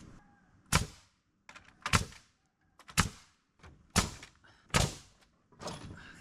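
Hammer blows: six sharp knocks, roughly one a second, on the timber framing.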